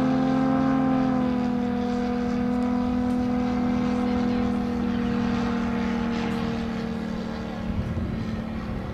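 Moki radial engine of a giant-scale RC F4U Corsair running steadily in flight, its pitch sinking gently and the sound fading near the end as the plane moves away.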